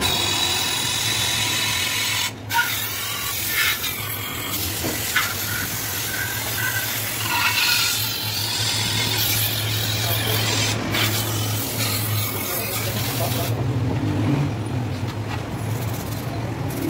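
Aerosol cleaner spray can hissing in long bursts as a carbon-fouled EGR part is sprayed clean, with two brief breaks; the spraying stops about three-quarters of the way through. A steady low hum runs underneath.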